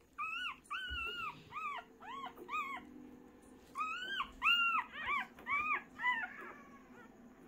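Newborn Siberian Husky × Bernese Mountain Dog puppies crying: a run of short, high-pitched squeals that rise and fall in pitch, about seven in a row, then after a short pause a second run of about eight.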